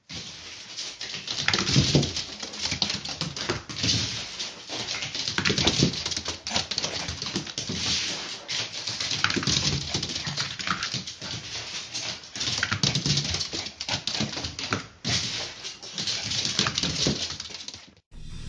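Small long-haired dog running laps on a wooden floor: a rapid, uneven clatter of claws and paws, with short whimpers now and then. The sound cuts off abruptly near the end.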